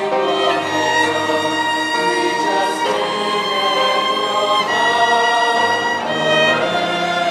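Mixed choir singing with an orchestra, strings prominent, in long held chords that shift every second or two.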